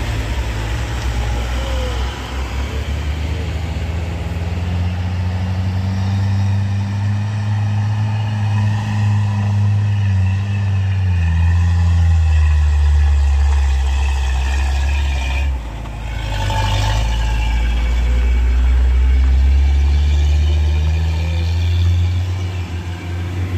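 Engines of small loaded trucks labouring up a steep climb, the engine pitch sliding down and then rising again, with a short break about two-thirds of the way through. Loudest near the end as a Mitsubishi L300 pickup pulls past close by.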